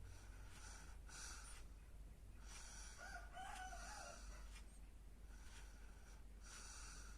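A sleeping baby's soft snoring breaths, coming in a slow run one after another. About three seconds in, a rooster crows once, faintly, for about a second. A steady low hum runs underneath.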